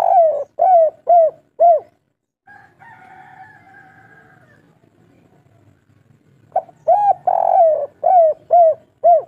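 Spotted dove cooing its song. A run of quick, rounded coos ends about two seconds in, and a second run of about six coos, one of them longer, starts about two-thirds of the way through. A fainter, drawn-out sound fills the gap between the two runs.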